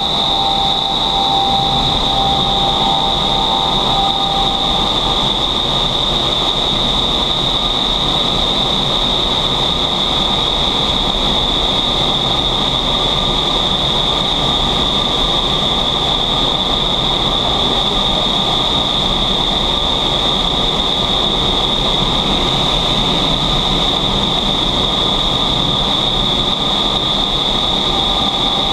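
Steady rush of high-speed air in an indoor skydiving wind tunnel's flight chamber, with a constant high whine over it.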